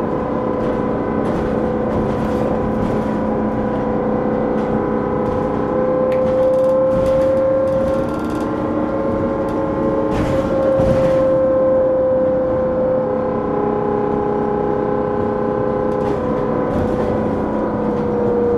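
Trolley bus heard from inside while it drives: the electric traction motor's steady whine, whose pitch drifts slightly up and then back down, over road rumble and light rattles.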